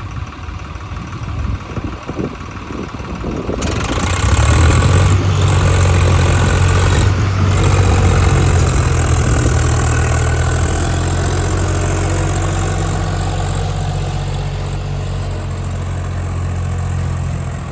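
Heavy diesel engine running, with irregular knocks at first, then coming up to a louder steady run about four seconds in and slowly easing off.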